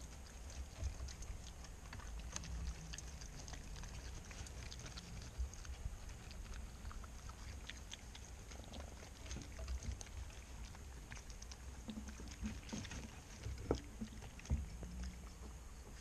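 Raccoon foraging in scattered birdseed close up: irregular small crunches and rustling clicks of seed as it eats. There is a low steady rumble underneath, and two sharper knocks near the end.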